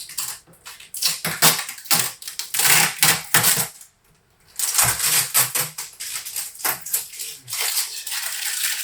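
Handling noise from the 3D printer and its packaging: a dense run of clicks, knocks and rustles, like plastic and packing material being handled, with a brief pause about four seconds in.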